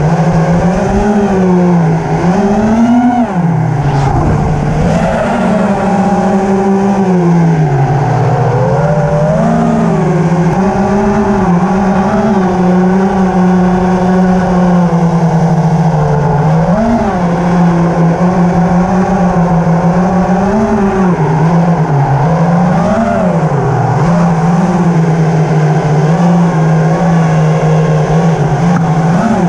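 Small drone's propellers buzzing steadily and loudly, the pitch dipping and rising every few seconds as it manoeuvres.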